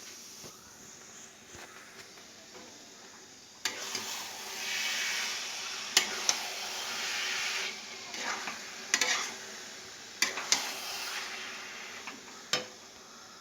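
Grated coconut sizzling and hissing in a pan as it is stirred, its remaining water cooking off. The stirring utensil scrapes and knocks against the pan several times, and the hiss swells a few seconds in.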